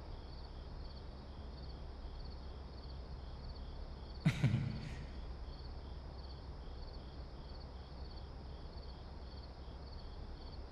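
Crickets chirping steadily, about two chirps a second, over a low steady hum, with a short knock about four seconds in and a fainter one just after.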